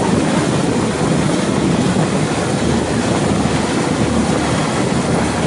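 Boat's engine running steadily under way, a loud, even drone.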